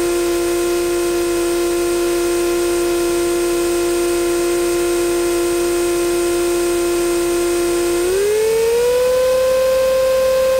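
Europa light aircraft's piston engine and propeller, heard from inside the cockpit, running at a steady hum. About eight seconds in the pitch rises smoothly as power is added, then holds at the higher note.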